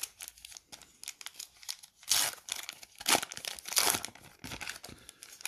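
Plastic foil wrapper of a Match Attax trading-card pack crinkling and tearing as it is opened: a run of irregular crackles, loudest between about two and four seconds in.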